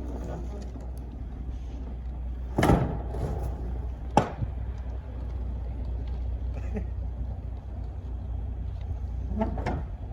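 Semi-truck diesel engine idling with a low, steady rumble. Several sharp knocks and clunks land over it, the loudest about a quarter of the way in and another shortly after.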